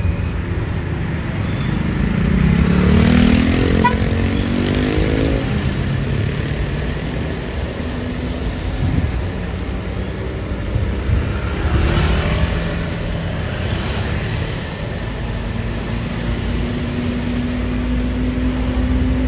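Road traffic with heavy vehicles passing close by, over a constant low engine rumble. A few seconds in, one engine revs up with its pitch rising, and a second vehicle passes about twelve seconds in.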